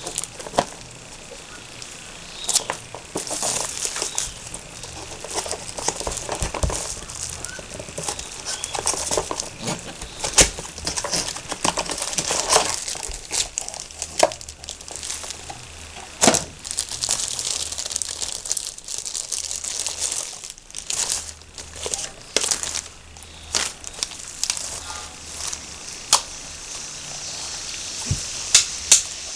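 A cardboard box and clear plastic packaging being handled and unwrapped by hand: irregular crinkling with many sharp crackles and clicks.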